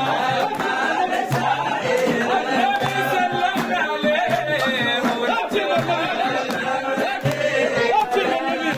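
Sudanese madih, a Sufi praise song for the Prophet, chanted by a group of voices over a steady percussive beat.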